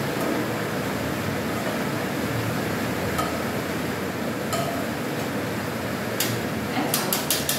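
Shrimp sizzling in a frying pan as a steady hiss, with a couple of single light clinks from a stainless wire skimmer. Near the end the skimmer is tapped quickly against a rim, a run of sharp clinks about five a second.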